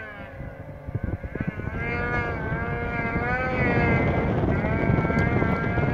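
Snowmobile engine running hard under throttle, its whine wavering up and down in pitch and growing louder about two seconds in, over low wind rumble on the microphone.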